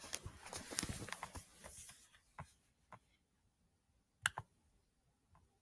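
Handling noise: a run of small clicks and rustling in the first two seconds, then a few single clicks and a sharp double click about four seconds in.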